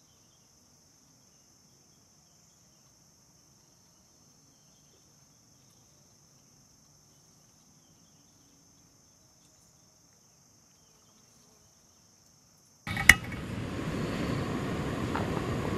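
Faint steady high chirring of crickets. About thirteen seconds in comes a sharp click, and a canister-top camping gas stove's burner starts a steady, loud hiss.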